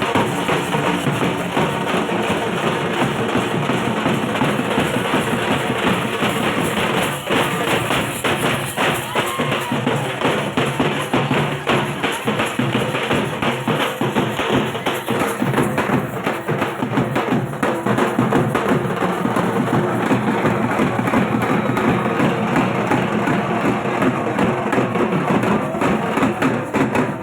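Dhak, the Bengali barrel drum, played continuously in dense, rapid strokes at a steady loudness.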